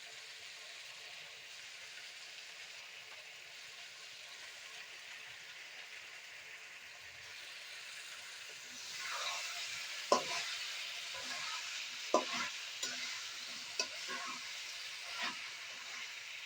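Chicken sizzling as it fries in a pan: a steady sizzle that grows louder about nine seconds in. A utensil stirring the pan then knocks and scrapes against it, with sharp clacks several times.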